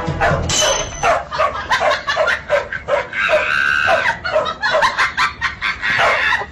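A dog barking over and over in short yips, about three a second, with a higher drawn-out whine partway through.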